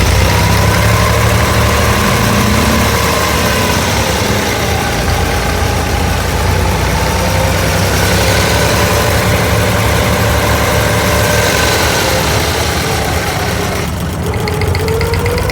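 Diesel engine of an abra, a wooden Dubai Creek water taxi, running steadily with a loud, even low hum.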